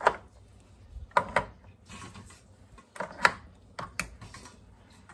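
Boiled eggs knocking against a stainless steel colander and a clear plastic egg container as they are moved into it: a string of light clicks, some in quick pairs.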